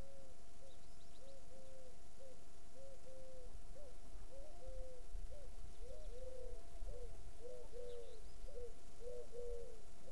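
A bird giving a steady series of short, low hooting coos, one to two notes a second, the notes crowding and overlapping more thickly in the second half, over a faint steady hum.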